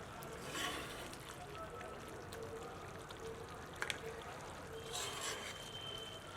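Liquid trickling and splashing in a cooking pot, with two light clicks just before four seconds in.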